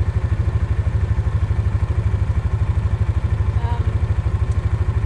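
Vehicle engine running steadily, a low, even pulsing hum.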